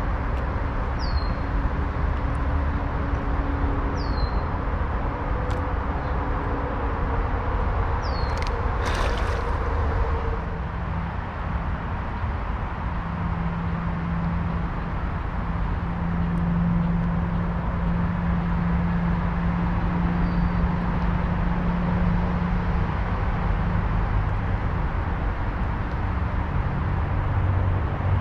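A steady outdoor rumble with a low hum running through it. A few short, falling bird chirps come in the first eight seconds, and a brief hissing burst comes about nine seconds in.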